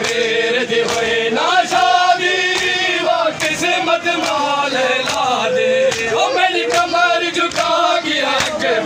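A group of men loudly chanting a noha, a Shia mourning lament, together, with a steady beat of hands striking chests (matam) beneath the voices.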